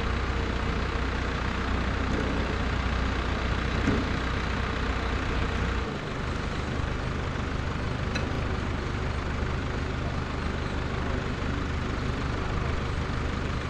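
A flatbed tow truck's engine idling steadily, with a short knock about four seconds in. The engine note shifts and drops slightly in level about six seconds in.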